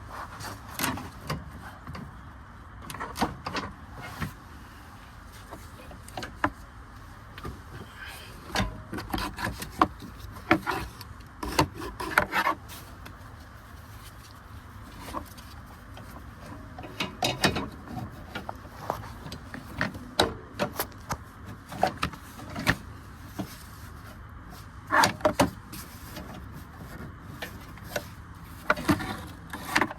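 Hand tools and metal parts clicking and knocking at irregular intervals while a car's power steering hose and pressure sensor are worked loose, over a steady low hum.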